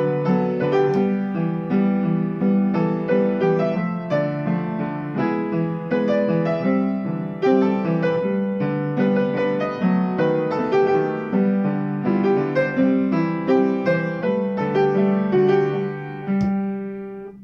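Upright piano played with both hands: a flowing melody of steady notes over a repeating lower figure. The playing fades out on a last chord near the end.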